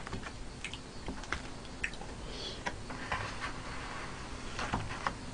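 Scattered light clicks and taps of chopsticks against plastic dumpling trays and a bowl while eating.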